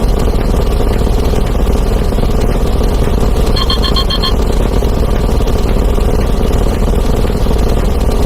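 A dense, unbroken din of overlapping sound effects, explosions and breaking glass piled on top of each other into a steady rumble. About three and a half seconds in, a digital alarm clock gives a quick run of about five high beeps.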